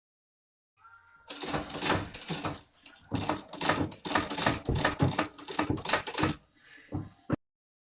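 Sewing machine running in short, uneven bursts with a clattering mechanical rattle, starting faintly about a second in and cutting off suddenly near the end.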